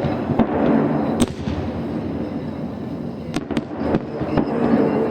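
Fireworks salute going off: several sharp bangs of bursting shells over a continuous crackling rumble.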